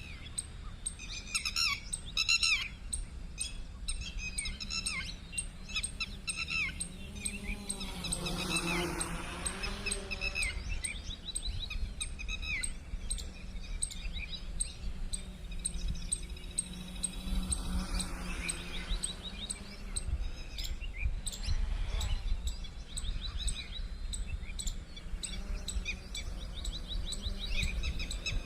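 Small birds chirping and calling repeatedly, over a low rumble. A low wavering hum swells and fades twice, about a third of the way in and again past the middle.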